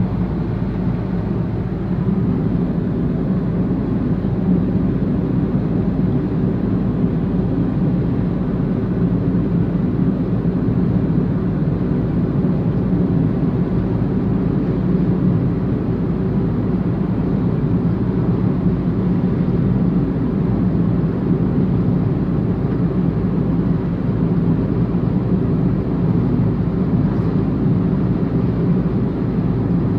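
Steady low rumble of road and engine noise inside a moving car's cabin, stepping up slightly about two seconds in.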